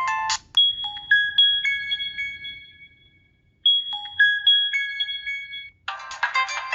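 Ringtone playing from a T-Mobile HTC HD2 phone: a short phrase of clear, chime-like notes, heard twice with a brief silence between. A different, busier ringtone starts near the end.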